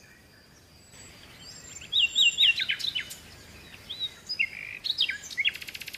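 Birds calling in the open: three quick downward-sliding chirps about two seconds in, more chirps a couple of seconds later, then a fast rattling trill near the end.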